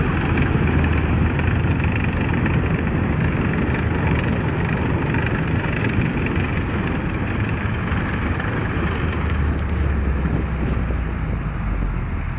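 Off-road vehicle engine running steadily as a constant low drone, with wind noise on the microphone.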